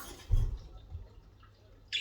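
A dull low thump about a third of a second in, with faint budgerigar chirps around it and a sharp high budgie chirp starting right at the end.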